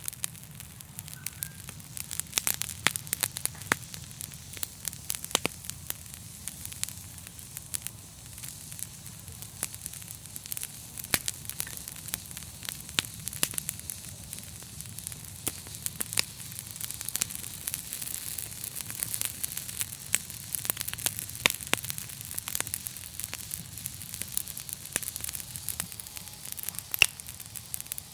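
Campfire burning: wood crackling and popping in frequent irregular snaps over a steady hiss, with a low rumble of the flames underneath.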